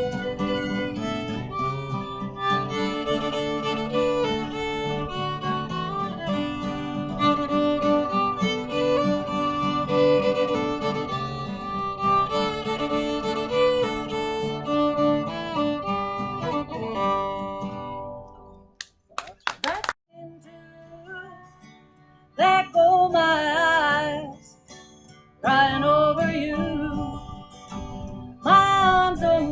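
Live country band playing an instrumental fiddle outro, with the fiddle leading over strummed guitar; the playing stops about 18 seconds in. After a short pause and a sharp click, a few separate wavering melodic phrases start up near the end.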